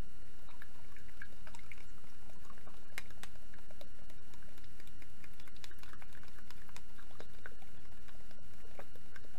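Small irregular ticks and light taps as food is handled and dropped into a plastic lunch box, over a steady faint electrical whine.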